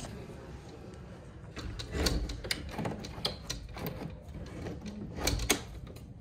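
Hinged glass French door being pulled shut and its handle latched: a knock about two seconds in, several clicks, and two sharp clicks near the end.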